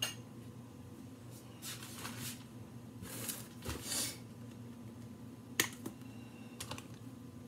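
Kitchen handling noises: a few sharp clicks and knocks and two short rustles, over a steady low hum.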